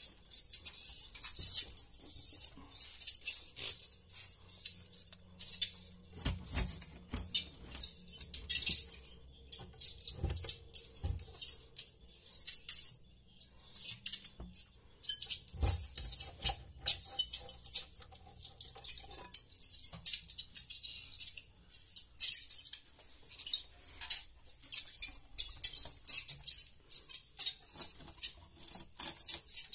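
Swiftlet roosting call (suara inap): rapid, high-pitched twittering chirps repeating without a break. A few dull knocks sound about 6, 10 and 15 seconds in, as nests are pried off the wooden boards.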